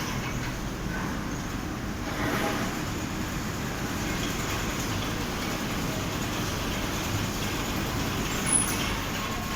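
Large fabric spreading machine running with a steady mechanical noise, with a short sharp high click near the end.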